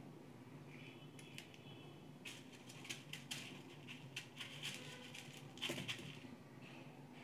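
Faint crackling and rustling of dry crushed Maggi noodle pieces as a noodle ball is rolled in them by hand on a steel plate, busiest from about two seconds in to about six seconds in.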